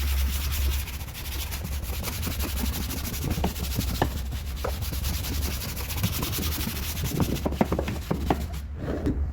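A brush scrubbing a car's interior surface: a fast, rasping rub over a low steady hum, with scattered light knocks and taps in the second half.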